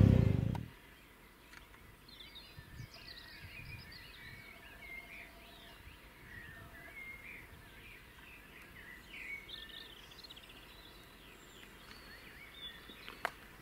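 Birds chirping and singing over faint outdoor background noise. A loud vehicle engine cuts off sharply in the first half-second, and there is a single sharp click near the end.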